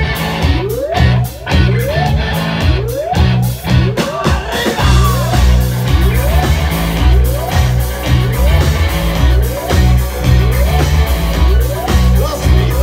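Rock band playing: electric guitar repeats a short rising phrase about twice a second over a steady beat. The bass and drums come in fuller about five seconds in.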